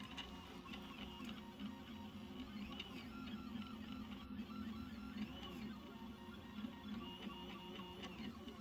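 3D printer running, its stepper motors whining in short tones that keep shifting in pitch over a steady low hum. The owner is unsure whether these noises are normal for the printer.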